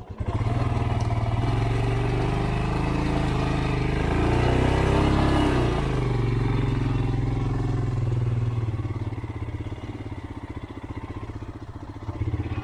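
Motorcycle engine running under load on a steep climb, with its pitch sagging and picking up again about halfway through. The rider says it was being held in second gear, too high for the slope. The engine note fades and weakens over the last few seconds.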